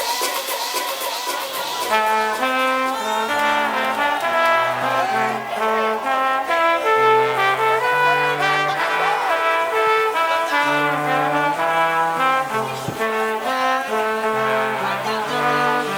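Dance music from a DJ set in a beatless breakdown: a brass-like melody of held, stepping notes over a sparse bass line, with the fuller arrangement coming in about two seconds in.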